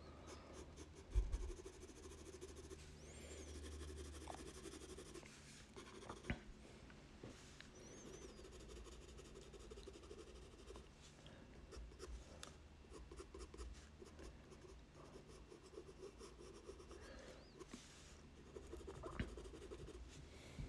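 Graphite pencil shading on white sulphite paper, the pencil held in a distant grip: faint, continuous strokes across the paper, with a few soft knocks along the way.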